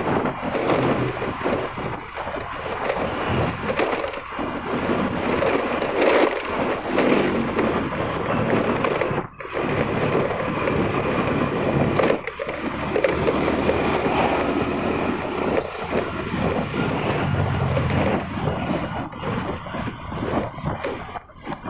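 Wind buffeting the microphone over the road noise of a moving vehicle, with a few brief dips.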